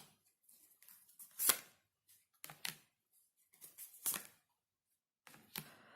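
Tarot cards being drawn and laid down on a table: several short card slaps and rustles, one every second or so.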